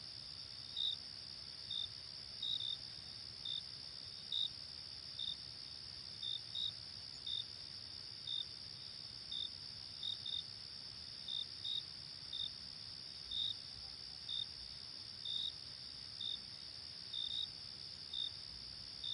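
Night-time insect chorus: a steady high trill with short chirps repeating over it at an uneven pace, about one or two a second.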